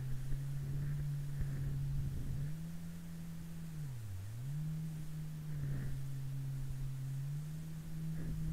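Jet ski engine running at speed, a steady drone that steps up in pitch a couple of seconds in, dips sharply for a moment near the middle and climbs straight back. Water spray splashes against the hull throughout.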